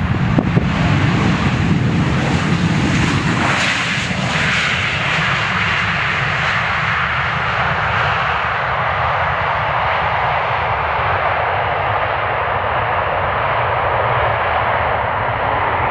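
Jet noise from a Boeing 737-800's CFM56-7B engines during the landing rollout: a loud, steady rush that swells over the first few seconds, peaks about three to four seconds in, then holds evenly.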